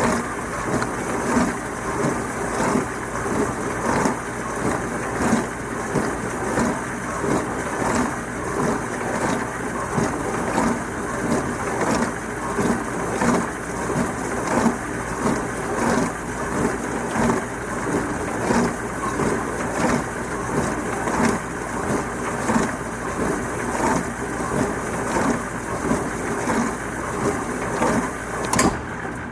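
Dishwasher spraying water inside its tub, a churning wash with a rhythmic swish about once a second. The spray cuts off just before the end, leaving a lower, steady hum.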